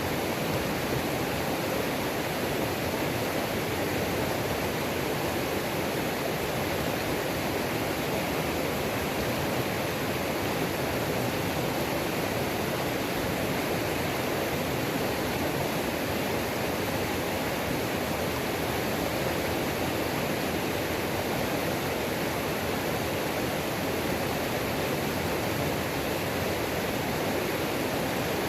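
Waterfall on a mountain creek, a steady, even rush of falling and churning water.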